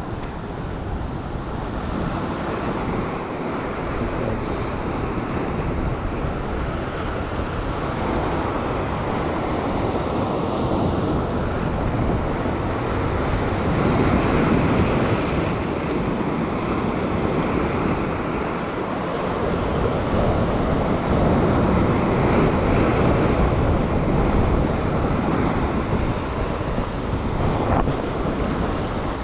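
Sea surf washing and breaking over a rock ledge, with wind buffeting the microphone in a low rumble. The wash swells louder about halfway through and again later on.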